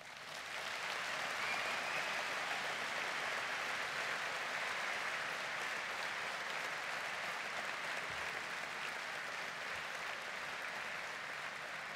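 A large audience applauding: dense, steady clapping that builds up over about the first second and eases a little near the end.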